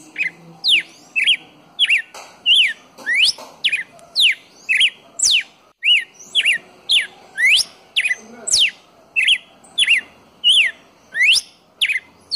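Red-cowled cardinal singing: a continuous run of loud, clear whistled notes, about two a second, mixing long sweeping slurs with short hooked notes.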